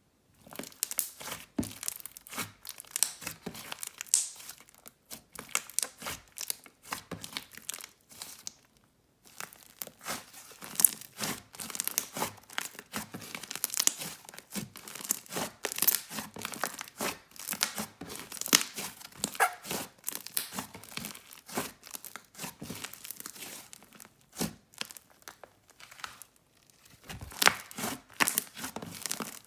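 Inflated slime with jelly cubes mixed in, squeezed and stretched by hand: dense, irregular crackling and small pops, with a brief pause about nine seconds in.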